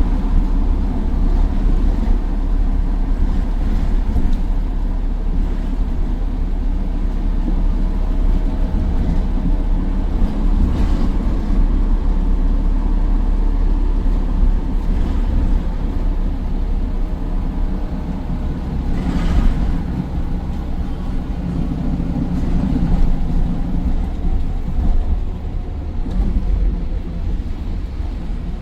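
Optare Versa bus's Mercedes-Benz OM934 5.1-litre four-cylinder diesel running under way through its Allison 2100 automatic gearbox, a steady low drone with a faint turbo whine. A brief hiss about 19 seconds in.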